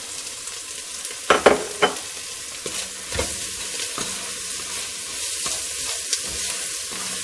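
Bacon sizzling as it fries in a hot oiled pan with onions and garlic, stirred, with a few sharp knocks of the utensil against the pan about a second and a half in.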